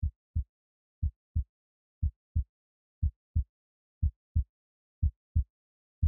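Low, dull thumps in pairs, about one pair a second, in a steady heartbeat-like rhythm.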